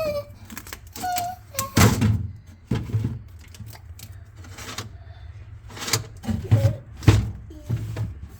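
Several knocks and thuds at irregular intervals, like handling noise.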